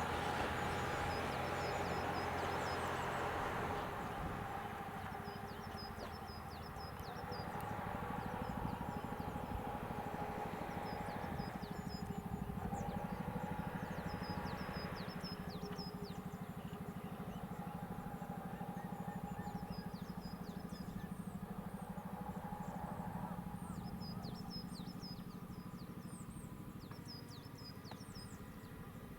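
KiHa 150 diesel railcar's engine running with a steady hum, slowly fading. Small birds chirp faintly and repeatedly in the background.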